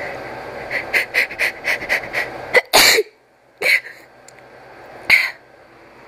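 A person's sneeze buildup: quick, hitching breaths about four a second, then one loud sneeze about two and a half seconds in, followed by two shorter, sharp bursts.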